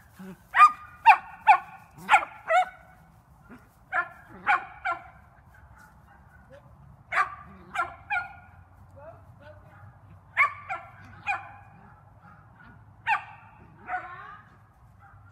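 Shetland sheepdog barking: sharp, high barks in quick runs of two to five, a run every few seconds.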